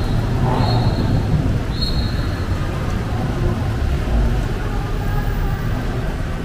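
City street ambience: a steady wash of road traffic noise with a low rumble, and a couple of brief high squeaks in the first two seconds.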